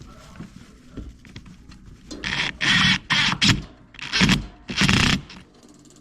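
Five or so short, loud scraping and rubbing noises in quick succession, starting about two seconds in, as a dishwasher drain hose and its clamp are worked into place under a sink.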